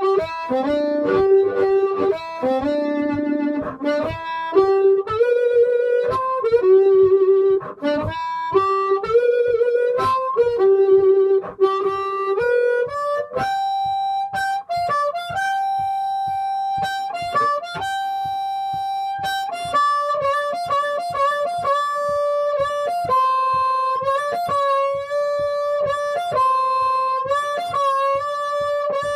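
Blues harmonica played through a cupped bullet microphone, amplified. Melodic lines ride a steady percussive pulse; about halfway through it rises to a long held high note, then carries on in the higher register.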